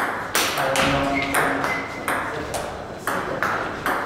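Table tennis rally: the ball clicks in quick alternation off the Donic table and the players' bats, each hit ringing briefly in the hall.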